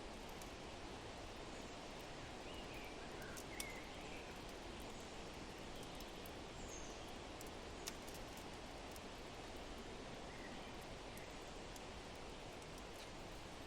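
Steady wind-and-rustle ambience with faint bird chirps a few times, and occasional sharp pops from a wood fire crackling, two of them standing out.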